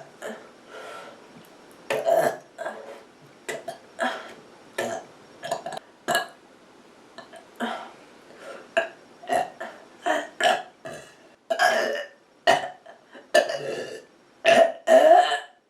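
A person burping over and over in quick short burps, roughly two a second, with the loudest and longest ones near the end.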